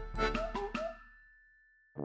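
Light background music with chiming, bell-like notes; the last notes sound within the first second and die away to near silence in the second half.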